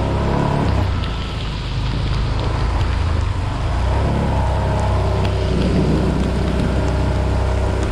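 A vehicle engine running steadily under the hiss of tyres through water on a rain-soaked road, with rain falling; the engine's hum is plainest in the first second.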